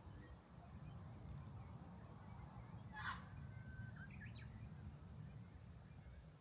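A songbird calls once, about halfway through: a short sharp note, a steady whistle held for about a second, then a few quick higher notes. Under it runs a faint low rumble of wind on the microphone.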